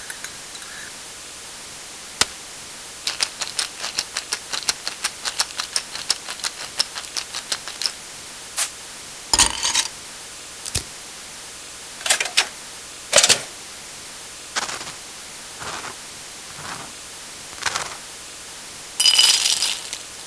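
Tableware and dish sound effects: a run of quick light clicks, about four a second, then a string of separate knocks and clinks. Near the end comes a louder clink with a ringing tone.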